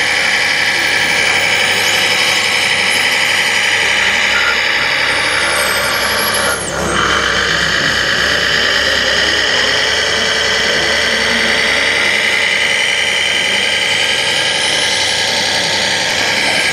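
Radio-controlled model bulldozers and road roller running: a steady mechanical whine from their motors and gear drives, dipping briefly about seven seconds in and picking up again.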